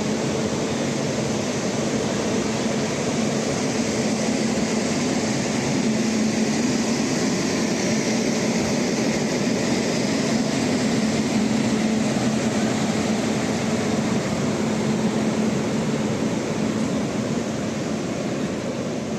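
Railway locomotive running with a steady, unchanging hum over a constant rushing noise.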